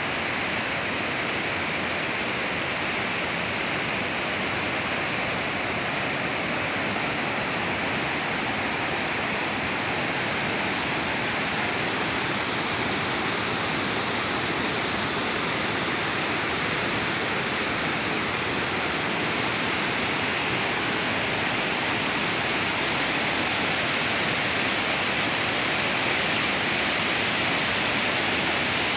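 Water rushing and cascading over a rocky riverbed below a dam, a steady hiss of whitewater.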